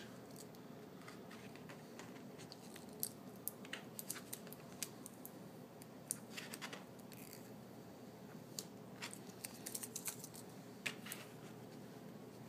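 Faint, scattered clicks and crackles of adhesive tape and fingertips on a plastic screen protector as it is lifted from an iPhone's glass and dabbed with a loop of tape, over quiet room tone.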